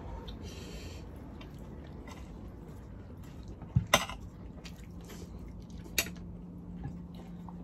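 Metal serving spoon and fork clinking against a ceramic platter while biryani is scooped: a quick pair of clinks about halfway through and a single one about two seconds later, over soft chewing.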